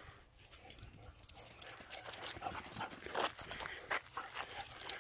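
Two dogs panting and scrambling as they chase each other over a stick: a run of short, irregular breathy sounds that gets busier from about a second and a half in.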